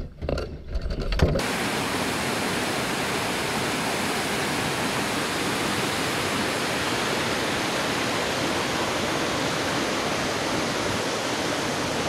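About a second of wind rumble and knocks on the microphone, then a sudden change to the steady, even rush of river rapids and a waterfall.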